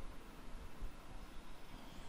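Quiet room tone: a steady hiss with a faint low rumble, no distinct events.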